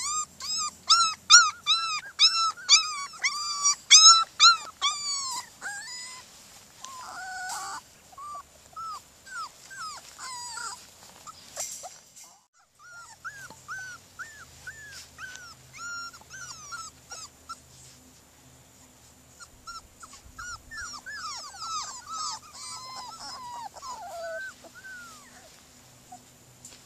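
Border collie puppies whining and yelping in short, high, arching cries, many in quick succession and loudest over the first five seconds, then more scattered, with a brief gap about halfway through.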